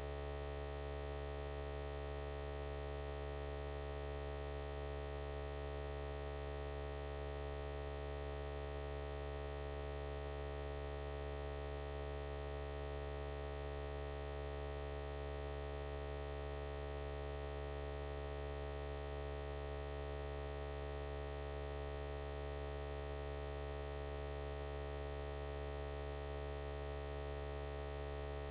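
Steady electrical hum: a low drone with several fixed higher tones over it, unchanging in pitch and level.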